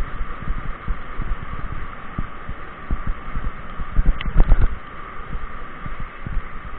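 Mountain bike rolling over a gravel forest road: irregular low thuds and knocks as the bike and camera jolt over the bumps, over a steady rushing noise from the tyres and wind.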